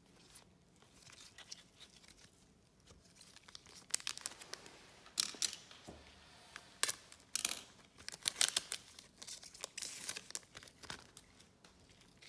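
A trading-card pack's wrapper being torn open and crinkled. Faint handling ticks come first, then from about four seconds in a run of loud, irregular tearing and crinkling noises.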